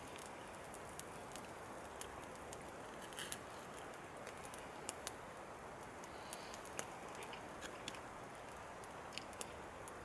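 Faint crackling of a small wood fire under a cooking pot: sparse, irregular sharp snaps over a steady hiss.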